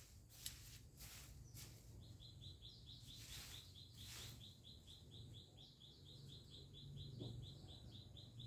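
Faint bird call: a short high chirp repeated evenly about four to five times a second, starting about two seconds in. Brief rustles of leaves come in the first few seconds, over a low steady hum.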